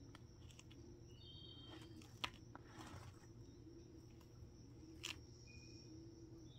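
Hermann's tortoise biting and crunching lettuce leaves: faint crisp crackles over a low steady hum, with a sharper snap about two seconds in and another about five seconds in.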